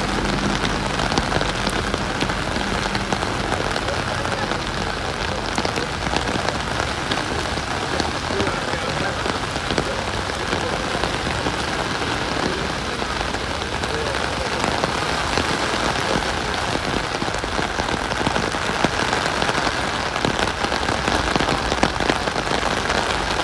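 Heavy rain falling: a steady, dense hiss of rain with many small ticks of drops hitting surfaces.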